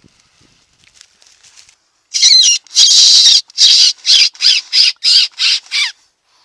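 Fox call blown by mouth to lure a fox: a loud run of about nine high, wavering calls, the second the longest, each falling in pitch, starting about two seconds in and ending near the end. Faint ticking comes before it.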